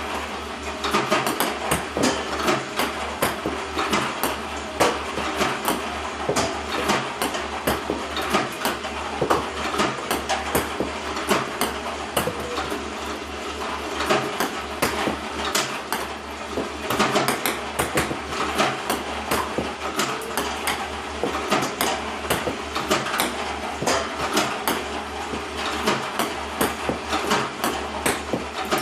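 iPong Pro table tennis robot running with a steady low motor hum, with a quick, uneven stream of sharp clicks and taps as it feeds and throws 40 mm ping-pong balls and the balls bounce. The robot is misfiring more and more often.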